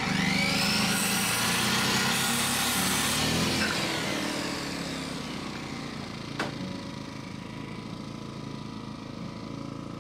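Electric circular saw spinning up and cutting through a wooden board for about three seconds, then winding down over the next two seconds. A single sharp knock comes about six seconds in.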